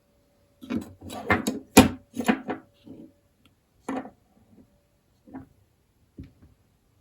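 Folding knives being handled: a quick run of clicks and knocks in the first few seconds, then a few single taps.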